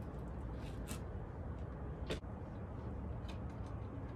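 A few light clicks of a carbon fiber license plate frame being snapped onto the plate, the clearest about two seconds in, over a steady low background rumble.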